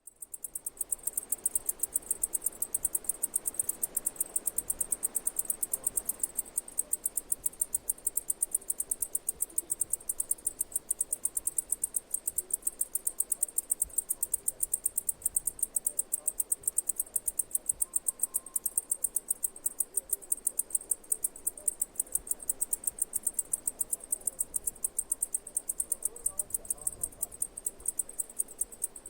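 Cicadas singing: a steady, high-pitched chorus of rapid, evenly repeating pulses, fading in over the first second.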